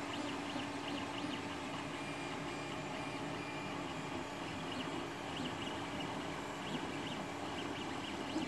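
Creality Ender 3 3D printer running a print: cooling fans humming steadily while the stepper motors give short, high chirps as the print head moves.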